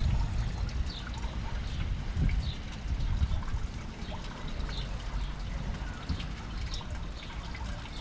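Outdoor ambience with wind buffeting the microphone in uneven gusts, under a scatter of faint, short high chirps from small birds.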